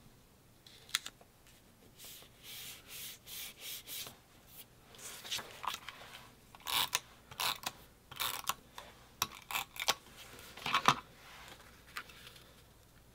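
Adhesive tape runner rubbed across the back of a cardstock square in short strokes, with paper rustling as the piece is handled and pressed onto the layout. A run of even strokes comes first, then sharper, irregular rustles, the loudest near the end.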